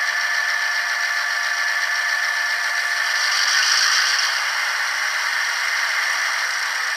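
LokSound sound decoder playing its EMD 567 diesel prime mover sound through a small 8-ohm speaker in an HO scale GP9 model, a steady engine sound with no deep bass. A brief louder high-pitched rush comes about three to four seconds in.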